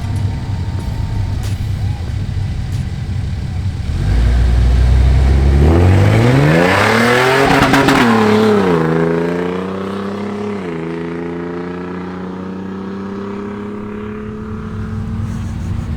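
Four-wheel-drive's engine accelerating hard: its pitch climbs, drops at a gear change about nine seconds in, drops again near eleven seconds, then pulls steadily upward. A loud rushing noise rises with the engine at its loudest, about seven seconds in.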